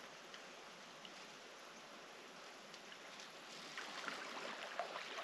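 Faint, steady hiss of flowing river water, with scattered small splashes and ticks that grow a little louder over the last second and a half.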